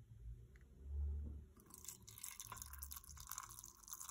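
A low thump about a second in, then water being poured from a kettle into a glass teapot onto a tea bag, starting about a second and a half in and running on steadily.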